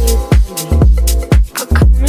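Music: a rap track with a deep bass beat hitting about twice a second.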